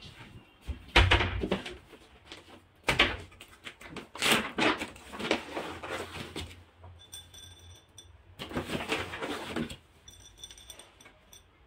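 Dry cat kibble poured from a bag into a ceramic bowl, the pellets rattling in a few separate pours, the longest in the middle and another near the end, with knocks from the bowl and bag being handled on the counter about a second and three seconds in.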